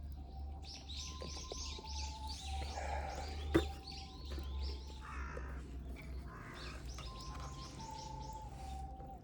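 A bird calling in quick runs of chirps, twice, over soft recorder music holding plain single notes that step from pitch to pitch. A sharp click about three and a half seconds in.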